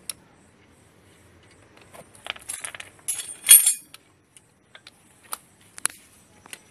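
Metal clinking and clattering, as of hand tools or sockets being handled, in a short cluster about two to four seconds in, then a few separate clicks.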